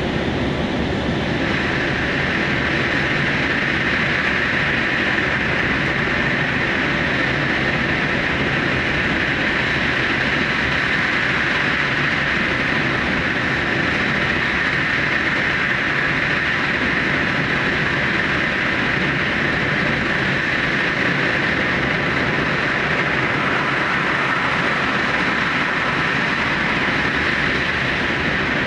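Super Hakucho limited express electric train running at speed through the Seikan Tunnel, a steady rumble and hiss of wheels on rail closed in by the tunnel walls. The higher hiss grows stronger about a second and a half in, then holds steady.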